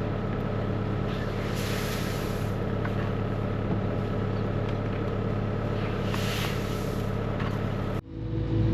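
Vehicle engine running at a steady idle, with a hiss swelling up twice. Near the end it cuts abruptly to a different, louder engine.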